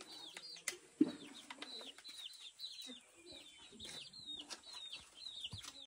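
Chicks peeping over and over in short, high chirps that fall in pitch, about three a second, with a sharp knock about a second in.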